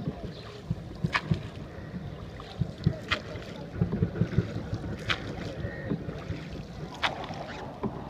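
Wooden rowing boat under way, with a sharp knock about every two seconds in time with the oar strokes. Water sloshing, irregular low thumps and wind buffeting the microphone sit underneath.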